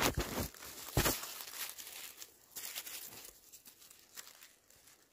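Dry fallen leaves crinkling and rustling as a gloved hand parts them around a mushroom, with a few sharp crackles in the first second and fainter rustling after.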